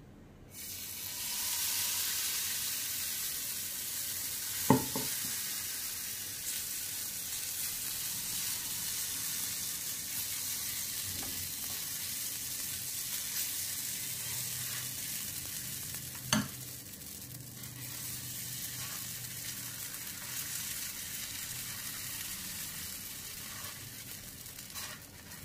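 Jaggery-and-flour poora batter sizzling steadily on a hot nonstick tawa, the sizzle starting about half a second in as the batter is poured, while it is spread with a ladle. Two sharp knocks stand out, about five seconds in and again about sixteen seconds in.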